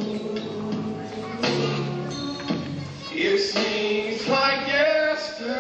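Music with a man singing into a microphone, his voice gliding in long held notes.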